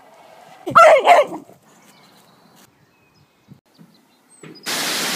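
A beagle barking twice in quick succession, each bark sliding down in pitch. Near the end a loud, steady rush of noise begins.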